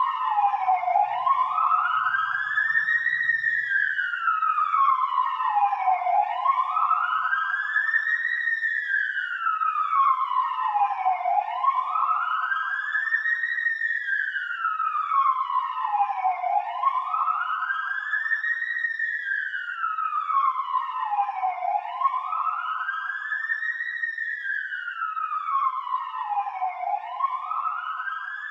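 Police siren sounding a slow wail: one tone climbs for about two and a half seconds, then slides back down, repeating about every five seconds.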